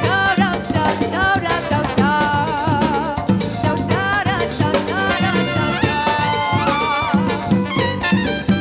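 Salsa music with a brass section and a singer over bass and drum kit.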